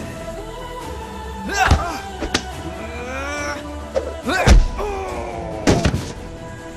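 Fight sound effects over steady background music: about four punch and body-blow thuds, each with a man's short cry; the heaviest, deepest thud comes about halfway through.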